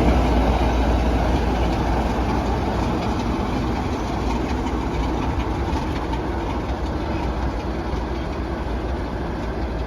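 A heritage train headed by steam locomotive 7828 and Class 33 diesel D6566, moving slowly, with steady wheel and engine noise. It grows gradually quieter.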